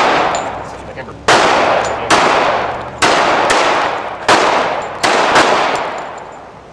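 A gun fired about seven times in a steady string, the shots roughly half a second to a second apart, each one trailing off in a long echo.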